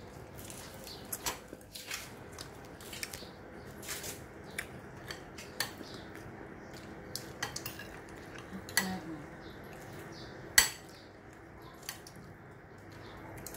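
Metal spoons clinking and scraping against ceramic bowls and plates during a meal: scattered light clicks, with one sharper clink about ten seconds in.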